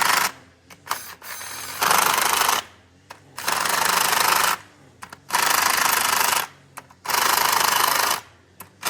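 A power tool run in repeated bursts of about a second each, with short pauses between, four full bursts in a row.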